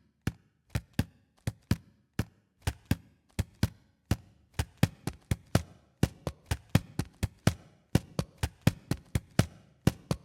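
Rhythmic percussive knocks and taps played as a beat on everyday objects, a sharp dry hit several times a second; the pattern grows busier about six seconds in.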